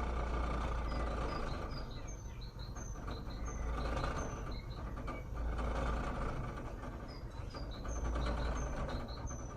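Mazda Premacy 1.8's four-cylinder petrol engine idling roughly in drive with the brake held, its low rumble swelling and sagging unevenly every two to three seconds. The fault behind the rough idle turned out to be a crack in the air intake. Faint short bird chirps sound over it.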